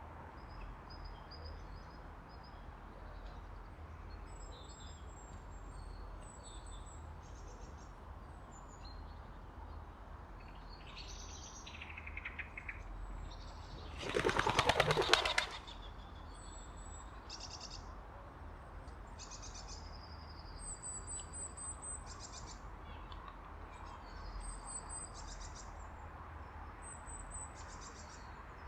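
Small birds chirping in short, thin, high calls throughout, and about halfway through a bird's wings clattering in a loud burst of rapid wingbeats lasting about a second and a half as it takes off.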